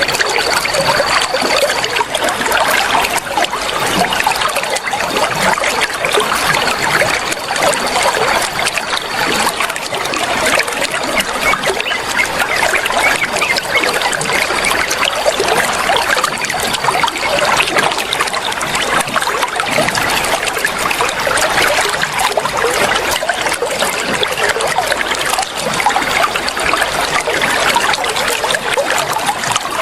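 Flowing water trickling and splashing in a steady, dense rush. A faint, thin, high steady tone comes and goes over it.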